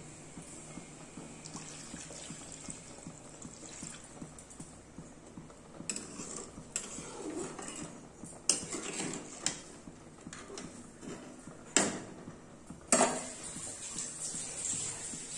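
Steel spatula stirring and scraping a liquid fish curry in an iron kadai, with scattered scrapes and clinks. Near the end come two sharp metal clanks about a second apart, the loudest sounds here.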